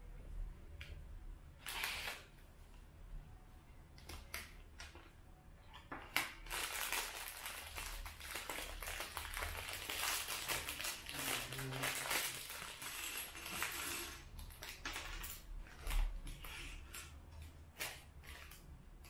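Lego set packaging being handled and opened: crinkling and rustling from about six to fourteen seconds in, with scattered clicks before and after.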